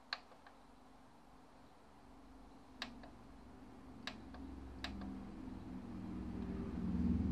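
Pioneer PDR-609 CD recorder writing the table of contents to finalise a CD-R: four faint sharp ticks spread over a few seconds, with a low hum that grows louder toward the end.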